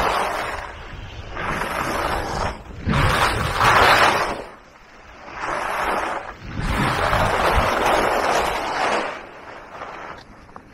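Skis hissing and scraping over packed snow through a run of turns, mixed with wind rushing over the microphone, swelling and dropping away every couple of seconds and fading near the end.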